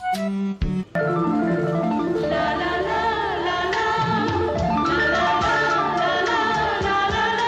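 Background music: a few short chiming mallet-percussion notes, then about a second in a fuller song starts and plays on steadily.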